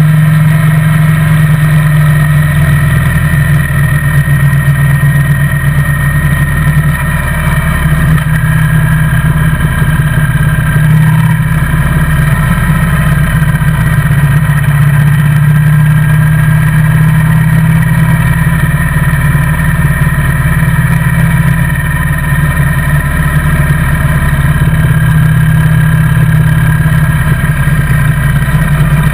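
Motorcycle engine running steadily at an even cruising speed, heard from a camera mounted on the bike's handlebars.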